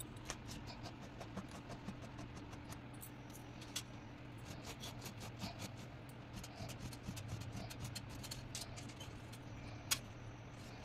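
Silver chain links clinking and ticking softly against a granite countertop while being rubbed with a microfiber cloth, many small irregular ticks and rustles, with one sharper click near the end.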